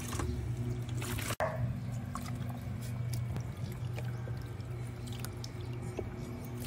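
Water poured from a plastic dipper over a chow chow puppy's wet coat, trickling and dripping into a plastic tub as a hand rubs the fur. A steady low hum runs underneath.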